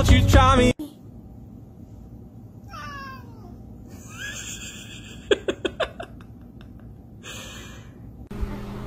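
A pop song with singing cuts off under a second in. A domestic cat then gives a wavering, falling meow, and a couple of seconds later there is a quick run of about five short, sharp sounds.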